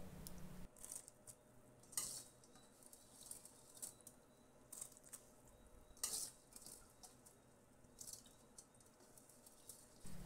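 Mostly near silence, with scattered faint taps and clinks of a steel bowl against an aluminium pressure cooker as soaked rice is tipped into the water; the two clearest taps come about two and six seconds in.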